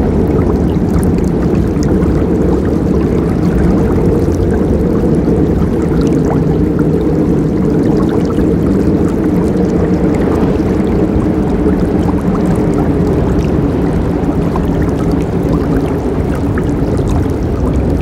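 Forest river flowing: a steady, deep rush of water with small splashes and trickles over it.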